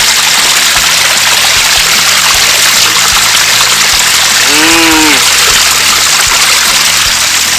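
Piped spring water running and splashing steadily, a constant loud hiss. A short hum that rises and falls in pitch comes about four and a half seconds in.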